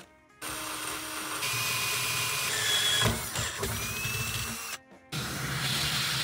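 Cordless drill boring through the truck's sheet-steel floor pan, with a thin whine that rises in pitch as the bit cuts. The sound drops out briefly twice.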